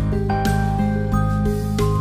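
Soft background music: calm instrumental notes and chords.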